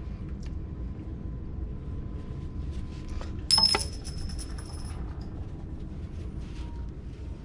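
A small metal part strikes metal once, with a high clinking ring that dies away over about a second and a half, over a steady low hum.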